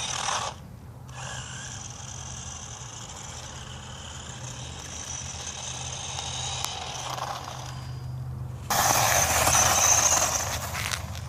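A GPTOYS S912 1:12-scale 2WD remote-control truck running: its electric motor and gears whine steadily over a low hum. The sound breaks off briefly twice. It gets much louder and rattly for a couple of seconds near the end as the truck drives hard.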